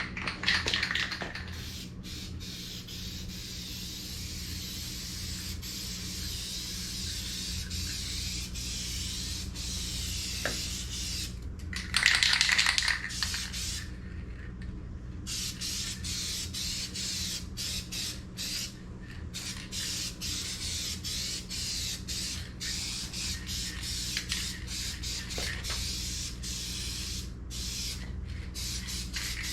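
Aerosol rattle-can spray paint hissing in long passes broken by short pauses, with a louder pass about twelve seconds in, laying down a heavier second coat.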